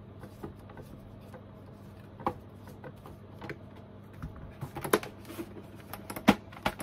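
Scattered light clicks and knocks of a plastic car instrument cluster and a folding key-set tool being handled on a desk, the loudest about six seconds in as the cluster is turned over.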